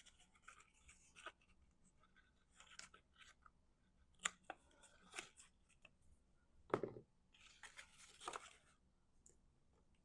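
Faint cutting and handling of cardstock as a slit is trimmed wider: scattered small snips, clicks and paper rustles, with a knock a little before seven seconds in and a longer rustle just after.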